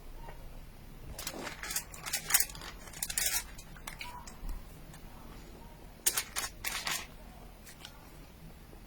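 Crisp clicking and crackling handling noises in two short clusters, about a second in and again around six seconds in, such as packaging or utensils being handled.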